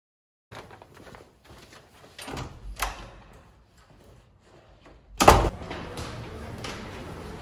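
Footsteps and the clicks of a door handle as a classroom door is opened, then one loud door bang about five seconds in, followed by steady background noise.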